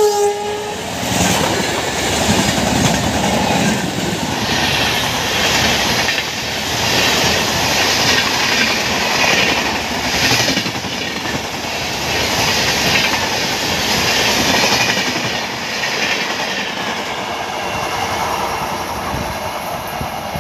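The horn of an Indian Railways electric locomotive cuts off at the very start. Then a long express train's coaches rush past close at high speed, the wheels clattering in a regular rhythm about once a second. The noise fades over the last few seconds.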